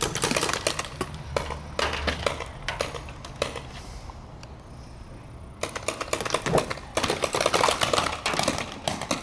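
Paintball markers firing in rapid strings of sharp pops. There is a lull just before the middle, then dense firing starts again a little past halfway.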